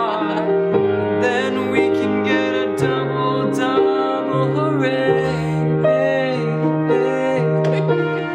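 A slow, gentle song: held piano chords under a voice singing a wavering melody without clear words.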